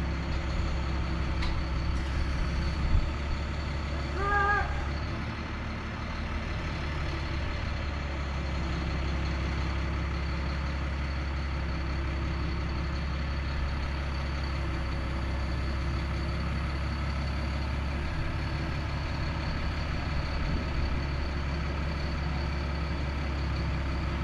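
Heavy equipment's engine running steadily with a low, even hum. A short pitched call comes about 4.5 seconds in.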